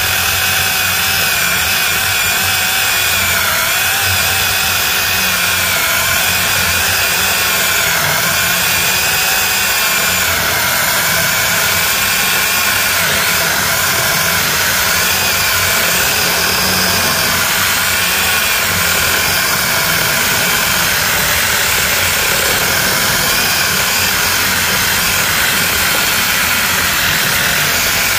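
Alloyman 20V cordless mini chainsaw cutting continuously through a thick, dense magnolia log, its electric motor and chain running with a whine that wavers in pitch as the hard wood loads it.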